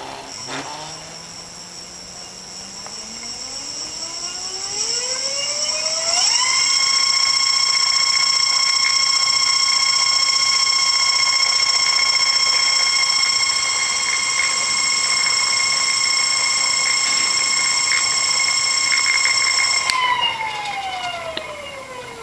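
Crystalyte electric hub motor spinning freely on a test stand with no load: its whine rises in pitch for about six seconds as it speeds up, holds steady and high-pitched, then falls as it slows down near the end. A couple of clicks come right at the start.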